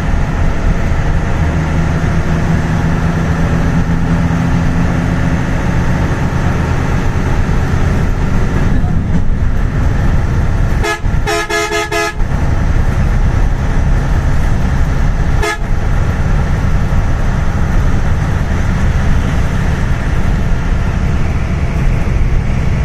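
Steady engine and road rumble of a vehicle driving at speed on a highway, with a vehicle horn sounding for about a second near the middle and a short second toot a few seconds later.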